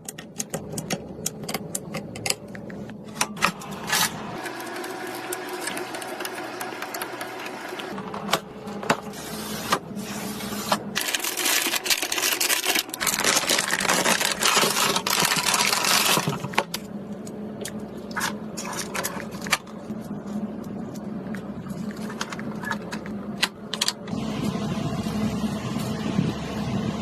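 Clicks, taps and knocks of computer parts being handled and fitted together, over a steady low hum, with a louder stretch of rushing, crackling noise in the middle.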